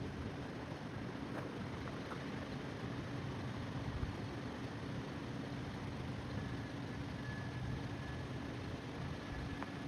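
Freight train of double-stack container cars rolling past, a steady rumble of wheels on rail, with a faint high squeal joining about two-thirds of the way in.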